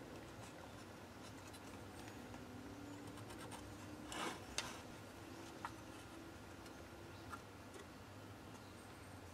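Faint pencil scratching as lines are marked on a hardwood strip against a metal square and rule. A short, louder scrape comes about four seconds in, and a few light clicks and knocks of the tools on the bench.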